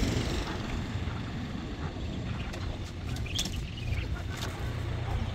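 Wind rumbling on the microphone, with a few short sharp clicks and knocks about halfway through.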